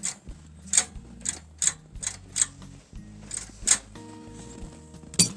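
Sharp metallic clicks and snaps, about nine, coming irregularly, as a throttle linkage with a stiff return spring is worked by hand and snaps back against its stop. Faint background music runs underneath.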